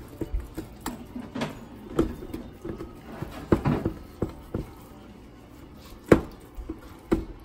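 A spoon stirring brownie batter in a plastic tub: irregular knocks and scrapes against the tub, the sharpest about six seconds in.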